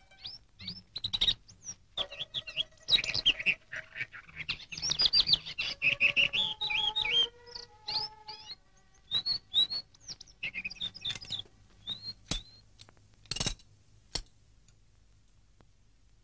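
Small birds chirping and twittering, many quick rising and falling notes overlapping, thinning out after about twelve seconds. Two sharp clicks come near the end.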